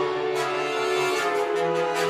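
Orchestral background music with held string notes.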